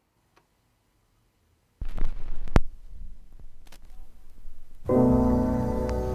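Turntable stylus set down on a spinning vinyl record: a thump about two seconds in, a sharp click, then surface crackle and pops from the lead-in groove. Recorded music starts playing from the record near the end.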